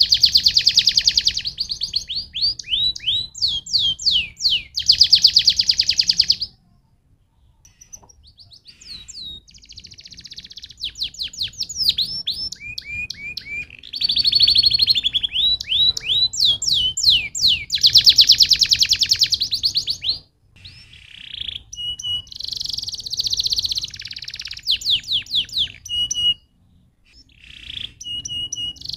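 Domestic canary singing long phrases of fast trills and rolls mixed with sweeping whistled notes, broken by a few short pauses.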